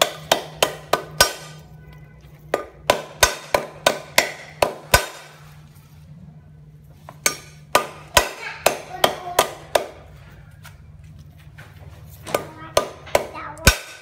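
Meat cleaver chopping lemongrass stalks on a round wooden chopping block: four quick runs of sharp chops, about three a second, with short pauses between them.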